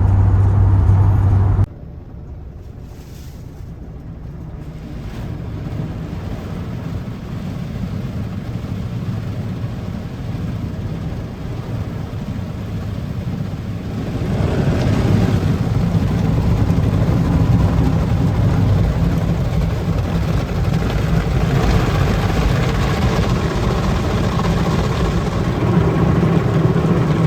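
Toyota HiAce van on the move: steady engine and road noise. A low drone cuts off abruptly about two seconds in; the rumble then builds slowly and gets louder about halfway through.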